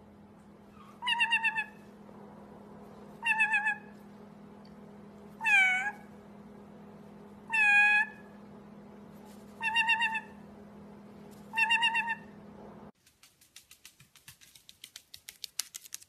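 White-bellied caique calling: six short, wavering calls about two seconds apart, the middle two dipping and rising in pitch.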